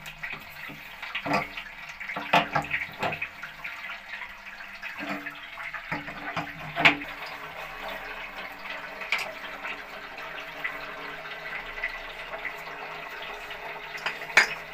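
Water running steadily into an electric geyser's storage tank through its braided inlet hose as the tank fills. A few sharp clicks and knocks come from a spanner on the hose fittings, the loudest about seven seconds in.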